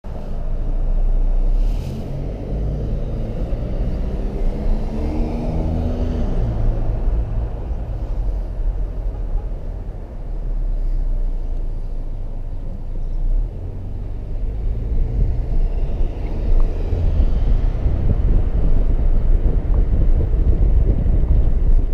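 Car driving on a city street: a low, steady engine and road rumble, with the engine note rising for a few seconds early in the drive as the car speeds up.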